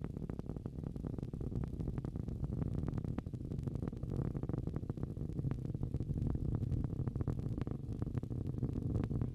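Falcon 9 rocket's nine Merlin engines in flight: a deep, steady rumble with continuous crackling.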